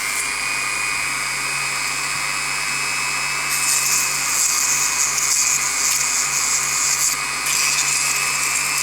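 A small high-speed rotary tool running with a steady whine, cleaning up model-car axles. Harsh hissing bursts come in about three and a half seconds in and again near the end as the tool works against the metal axles.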